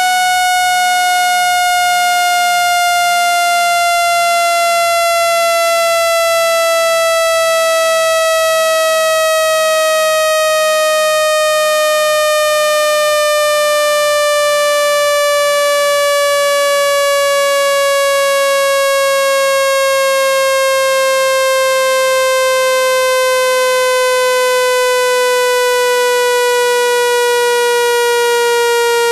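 Loud synthesized speaker-cleaning tone, a single electronic pitch with strong overtones that glides slowly and smoothly downward. It is a frequency sweep played to shake dust and water out of a phone speaker.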